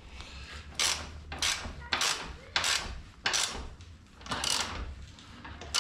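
Ratchet wrench worked back and forth in short strokes, about eight of them at an even pace, lightly snugging the motorcycle's rear axle nut after the chain has been tensioned and the wheel aligned.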